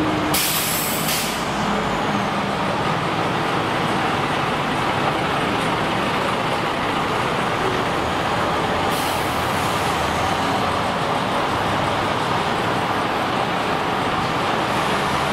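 Heavy vehicle running steadily with two short, sharp air-brake hisses, one just after the start and one about nine seconds in.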